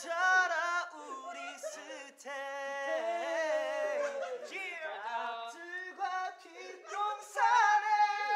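A young man singing unaccompanied into a handheld microphone, holding long notes that slide in pitch.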